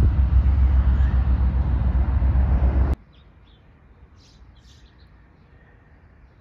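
A loud, steady low rumble that cuts off abruptly about three seconds in. After it comes a quiet outdoor background with a few short, high bird chirps.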